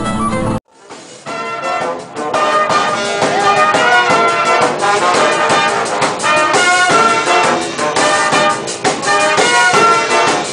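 Brass instruments playing a fast, busy tune, with many quick notes. It starts abruptly after a brief silence about half a second in.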